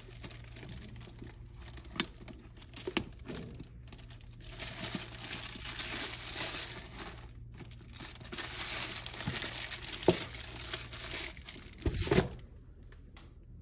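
Clear plastic wrapping on a handbag's chain strap crinkling as it is handled, in two long stretches, with a few sharp clicks and knocks between them, the loudest near the end.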